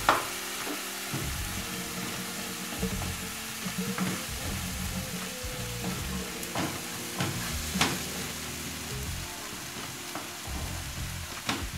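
Tomato, garlic and spice sauce sizzling in a very hot nonstick frying pan while it is stirred with a wooden spatula, with a few sharp scrapes of the spatula against the pan at irregular intervals.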